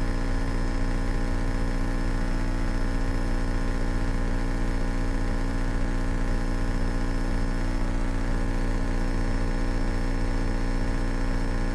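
Cessna 172K's four-cylinder Lycoming piston engine and propeller running steadily at full takeoff power, an even multi-toned drone with no change in pitch.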